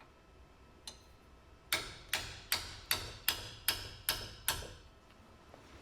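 A run of eight sharp metallic clicks, about two and a half a second, from a hand tool working on the brake caliper carrier bolts as they are tightened.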